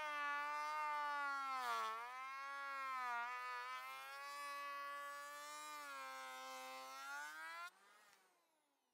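Electric hand planer running on an old painted board: a steady motor whine whose pitch sags twice in the first few seconds as the blades bite into the wood. Near the end the motor is switched off and winds down.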